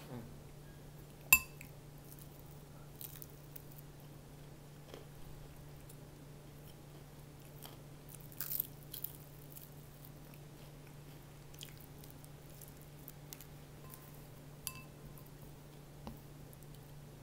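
Biting into crispy fried chicken and chewing, with a burst of crunching about eight seconds in. A single sharp click with a short ring, the loudest sound, comes about a second in, with a few small clicks later over a steady low hum.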